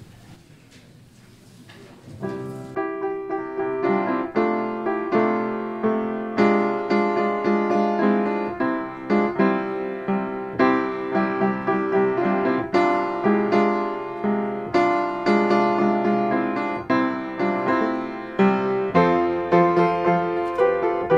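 Faint background hiss for about two seconds, then piano music begins: a steady run of struck notes and chords, each ringing and fading.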